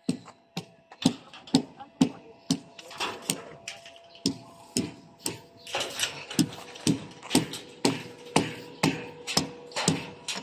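Footsteps on a concrete roof deck, a steady walking pace of about two steps a second, over a faint steady hum.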